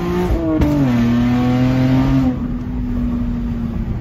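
Car engine with the muffler deleted, heard from inside the cabin, accelerating hard in first gear. Its pitch drops as it upshifts into second about half a second in, pulls steadily, then eases off and quiets a little after two seconds in.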